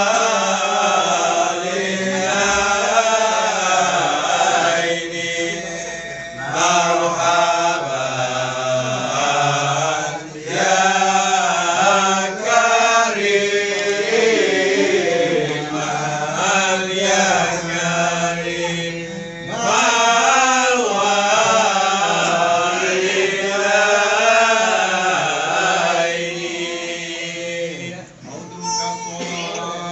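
Marhaban: a group of voices chanting Arabic verses of praise for the Prophet together, long melodic phrases with short breaks between them.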